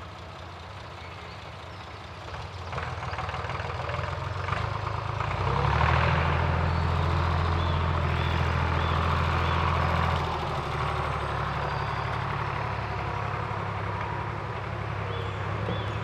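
Engine of a tractor driving slowly past, a steady low drone that is loudest from about five to ten seconds in. Faint bird chirps sound over it.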